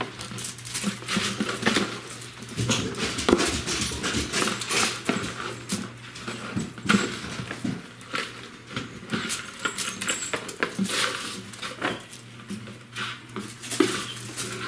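Paper gift bags and tissue paper rustling and crinkling as cats play in them, in irregular crackles and taps.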